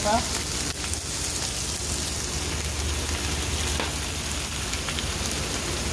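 Squash blossoms and sliced onions sizzling steadily in hot oil in a frying pan.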